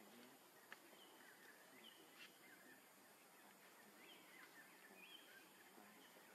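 Near silence, with faint, short bird chirps here and there over a low background hiss.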